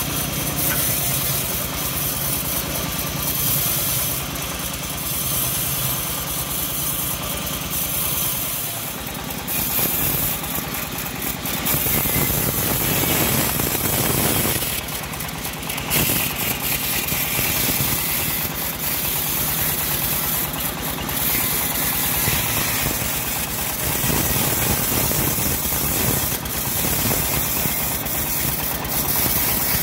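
Homemade engine-driven bandsaw mill running, its blade sawing lengthwise through a hard johar log. A steady engine drone sits under the cutting noise, which swells and eases several times during the pass.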